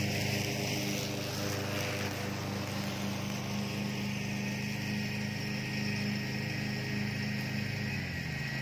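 Country Clipper riding mower's engine running steadily at one pitch while mowing, its blades turning on the newly made spindle.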